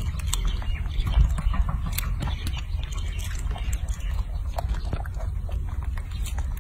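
Baby macaque chewing and smacking on a strawberry: many quick wet clicks and smacks over a steady low rumble.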